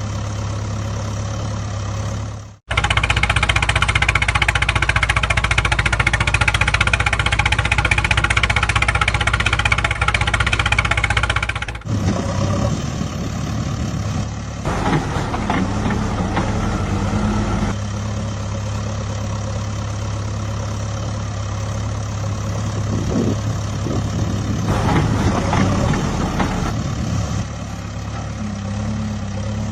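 Diesel engines of a backhoe loader and tipper truck running, the sound changing abruptly twice where clips are joined. The engine is loudest and harshest in the stretch between the two cuts.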